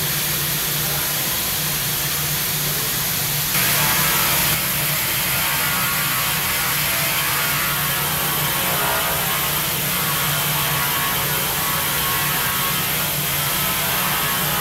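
CNC stone-working centre milling into a solid stone block with its water-cooled spindle tool: steady machine running with a constant hum under a strong hiss. It turns briefly louder and brighter for about a second near four seconds in.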